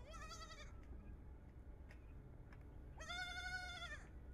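Goats bleating: one short bleat right at the start and a longer, loud bleat about three seconds in, over a faint low background rumble.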